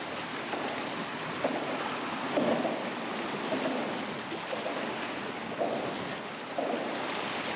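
Wind on the microphone over choppy sea water, with waves lapping and a few brief muffled sounds at intervals.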